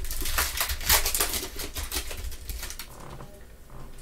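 Crinkling and rustling of a foil trading-card pack wrapper being torn open, with the cards slid out and handled. Dense crisp rustles that thin out near the end.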